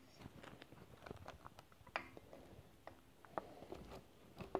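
Faint, irregular light clicks and taps of handling noise, with a slightly louder tap about two seconds in.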